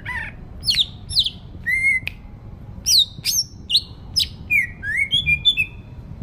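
A songbird chirping: a string of sharp notes, each sliding quickly down in pitch, with a few short level whistles among them.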